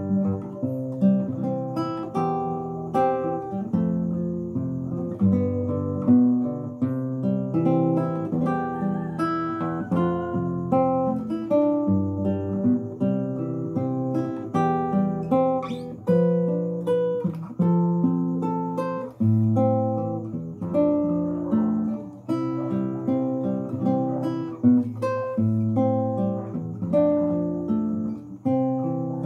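Solo nylon-string classical guitar played fingerstyle: a plucked melody over bass notes and chords, notes following one another without a break.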